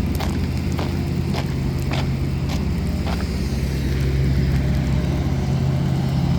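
Diesel engine of heavy asphalt-paving machinery running steadily, with a series of short sharp knocks about every half second over the first three seconds.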